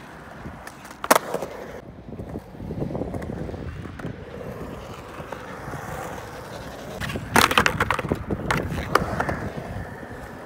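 Skateboard wheels rolling over polished concrete, a steady rumble, with one sharp clack about a second in and a burst of loud clacks and knocks of the board on the concrete around seven to eight seconds in.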